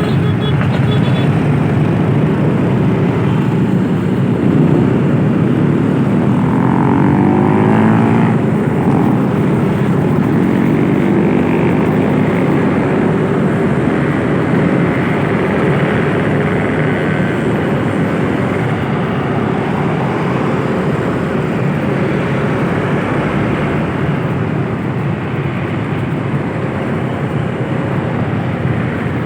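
Steady vehicle engine and road noise. A pitched engine sound glides in pitch from about six to twelve seconds in.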